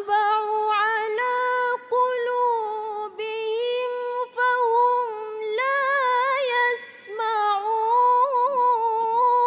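A woman reciting the Quran in the melodic tilawah style, drawing one long phrase out on held, ornamented notes. The phrase breaks briefly a few times, and there is a short hiss about seven seconds in.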